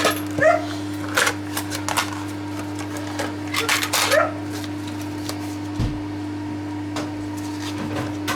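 A dog yipping and barking, a few short calls near the start and again about four seconds in, with sharp clicks between, over a steady low hum.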